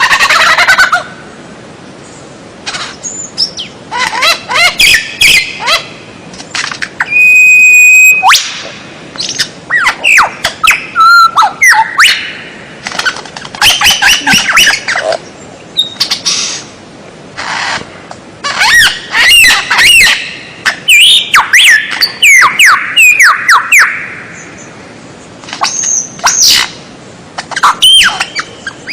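A songbird singing a loud, rapid, varied song, as played as a masteran tutor recording for caged songbirds. Bursts of chirps, trills and sweeping whistled notes come one after another with short pauses between them, and there is one long held whistle about a quarter of the way in.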